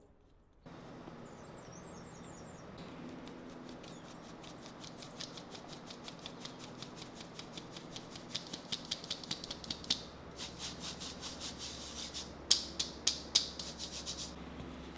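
Hand whisk beating batter in a mixing bowl: quick, regular clicks of the wires against the bowl, about five a second, growing louder, pausing briefly, then going on with a few sharper knocks near the end.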